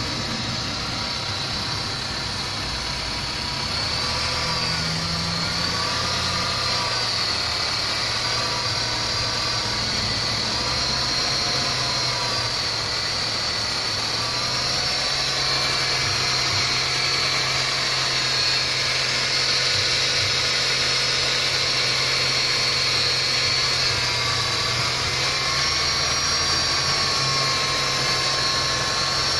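Chevrolet Astra 1.8-litre eight-valve four-cylinder petrol engine idling steadily, recorded close at the open engine bay.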